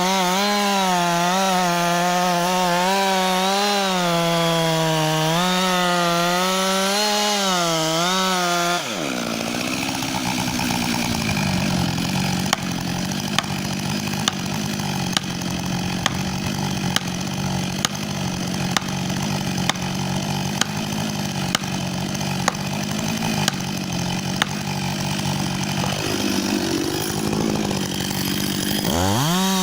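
Chainsaw revving up to full speed, its pitch wavering as it works through a cut. About nine seconds in the sound drops and settles into a steadier run, with a sharp tick a little under once a second. Near the end the revs dip and climb again.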